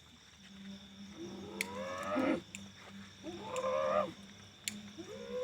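A person's voice wailing in long drawn-out cries, each rising in pitch, twice and then a third starting near the end. This is the cry of someone in a trance whom those present address as a possessing kuntilanak spirit.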